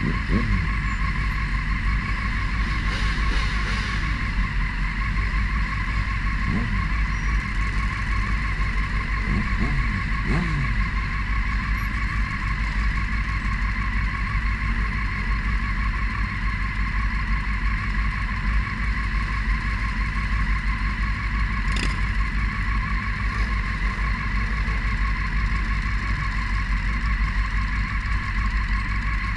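A crowd of motorcycles idling together, with one close by running steadily under the rest. Other bikes rev briefly a few times in the first ten seconds, and there is a single sharp click about two-thirds of the way through.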